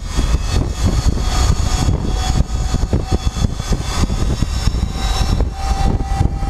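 Wind buffeting the microphone and road rumble while moving at road speed, with a faint steady whine over it.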